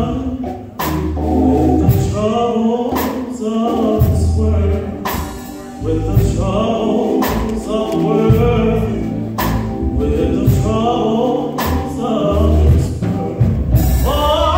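Male solo gospel singing into a handheld microphone, long held and bending notes, over a low accompaniment with a steady beat about once a second.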